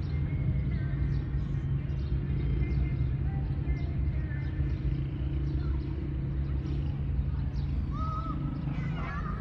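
Steady low rumble throughout, with a few faint short kitten mews near the end.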